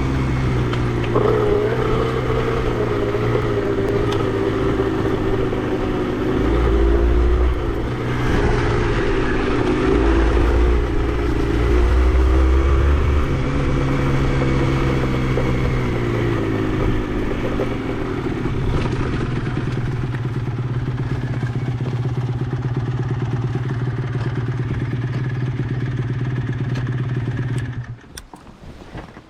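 Honda CRM80's two-stroke single-cylinder engine running under way, its pitch rising and falling with the throttle. It cuts off suddenly near the end, leaving only a faint background.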